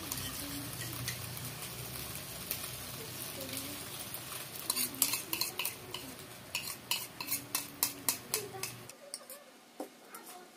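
Chicken sizzling in a wok as sauce is spooned in, with a quick series of sharp clicks of a utensil against the bowl and pan in the second half. A low steady hum underneath cuts off suddenly near the end.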